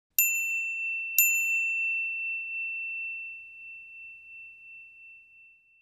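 Timer's end-of-countdown alarm: a high bell chime dinging twice, about a second apart, the second ding ringing on and fading away over several seconds.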